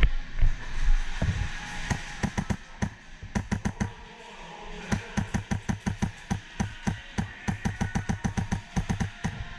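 Airsoft rifle, likely HPA-powered, firing fast semi-automatic shots, several a second, with a short break about four seconds in before another long string.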